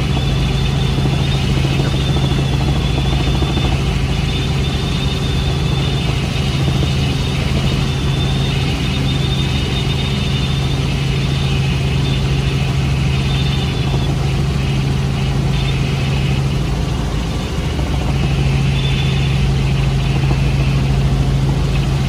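Light helicopter in flight heard from inside the cabin: a steady engine and rotor drone with a strong low hum. The hum briefly drops out about three quarters of the way through, then returns.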